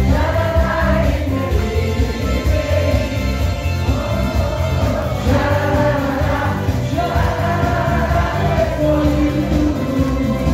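A group of people singing along together to backing music with a strong, steady bass beat, holding long, wavering notes.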